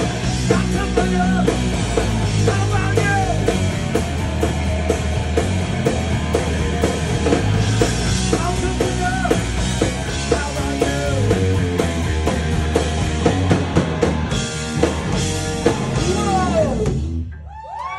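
Live rock band playing loud: distorted electric guitar, bass and a drum kit, with a singer. The band stops together about a second before the end, leaving a brief ringing tail.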